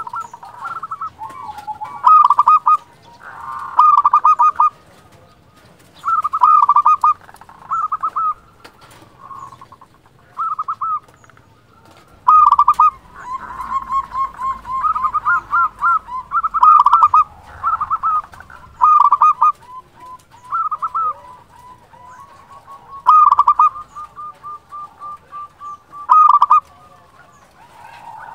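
Zebra dove (perkutut) singing, about a dozen loud phrases of quick stuttering coo notes, repeated every couple of seconds with short pauses between them.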